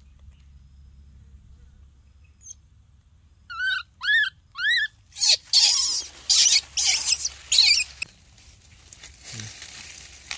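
Baby macaque crying: about three and a half seconds in, three short squeals that rise and fall in pitch, then a run of about six loud, harsh screams.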